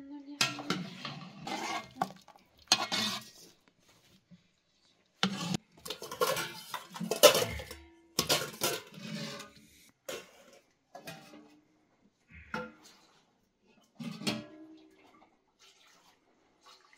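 Metal ladle clinking and scraping against a large metal pot and metal serving bowls as soup is dished out. The clinks come in irregular clusters with short pauses between them.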